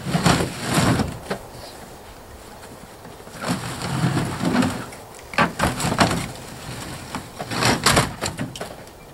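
Metal kitchen stove being shoved and slid into a pickup truck's bed: scraping and knocking of metal on metal in several bursts, with short pauses between pushes.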